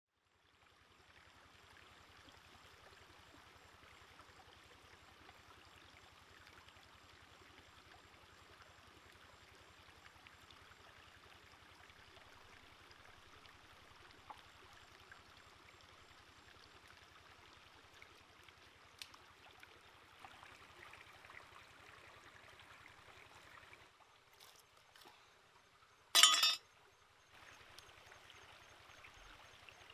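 Faint, steady rush and trickle of a shallow rocky stream. About 26 seconds in, after a short drop in the water sound, one loud, sharp noise lasts under half a second.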